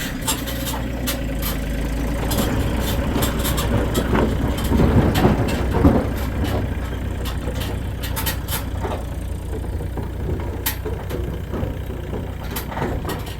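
Hauyee HY35C mini excavator running steadily under work, with many sharp clicks and cracks over the engine hum from limbs and wood being handled.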